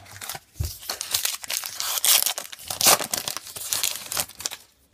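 Foil-and-plastic wrapper of a 2018 Topps Gypsy Queen baseball card pack being torn open and crinkled by hand, a dense run of crackling that is loudest about midway.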